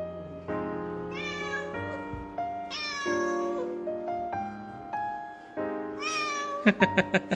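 Tabby cat meowing three times, each call rising and then falling, over background music with steady piano notes. Near the end comes a quick run of about five short, sharp sounds.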